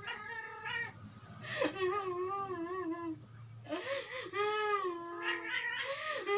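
A man's put-on crying: drawn-out, wavering, high-pitched wails, several in a row, with a brief sharp knock about one and a half seconds in.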